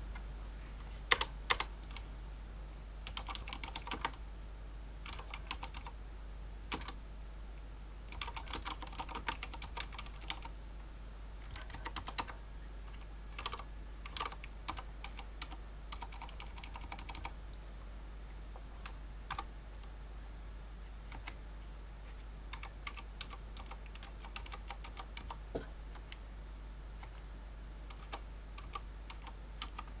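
Typing in irregular bursts with pauses on a Fnatic Gear miniSTREAK mechanical keyboard with Cherry MX Silent Red switches, rubber-dampened linear switches. Two sharper clicks about a second in are the loudest sounds.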